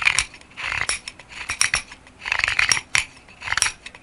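A sharp CPM S60V knife blade cutting into wood in a series of short scraping strokes, about five or six of them, each with a crisp click.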